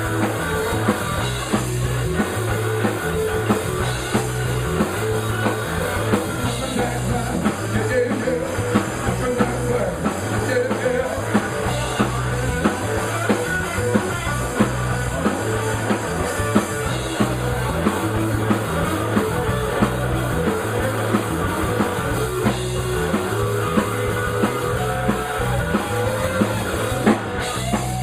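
Live blues-rock band playing an instrumental passage: drum kit keeping a steady beat under electric guitar and bass.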